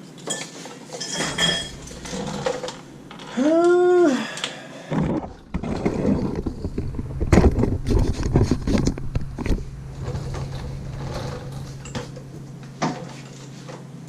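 Metal tools clinking and rattling against brake parts during brake adjustment, in scattered clicks with a busier stretch of clatter in the middle. About three and a half seconds in, a short rising-then-falling vocal call from a child.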